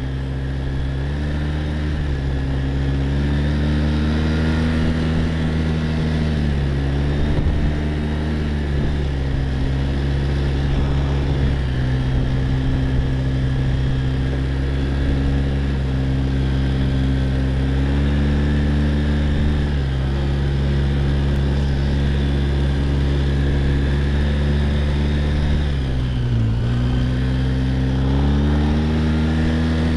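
Quad bike (ATV) engine running while under way, its note rising and falling repeatedly, with a sharp dip about 26 seconds in before it climbs again.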